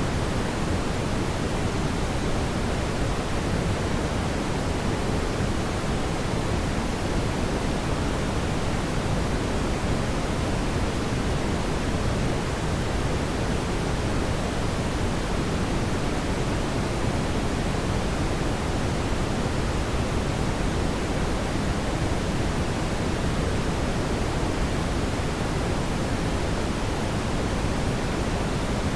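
Fire in a fireplace burning with a steady low rush of noise, with no distinct crackles or pops.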